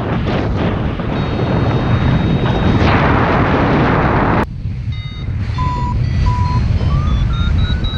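Airflow buffeting the camera microphone in flight, cut off abruptly about halfway. It is followed by a paragliding variometer beeping in short, evenly spaced tones that step higher and higher in pitch over quieter wind noise: the vario's climb tone, signalling rising air.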